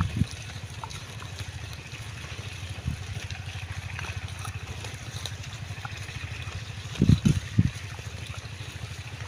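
Young wild boar piglets rooting and feeding in grass, with scattered faint crunching ticks. Under them is a steady low pulsing rumble, and a short cluster of louder low thumps comes about seven seconds in.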